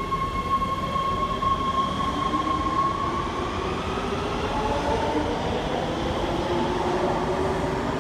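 LA Metro Breda A650 subway train accelerating out of the station. The electric traction motors give a steady whine that starts rising in pitch about three seconds in, over a constant rumble of wheels on rail.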